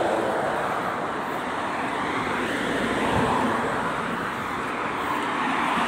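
City street traffic: cars passing on the road close by, a steady rush of tyre and engine noise.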